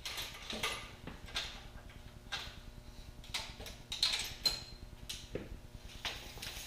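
Light, irregular clicks and scrapes of things being handled, about a dozen in all, with a brief high metallic ring about four and a half seconds in.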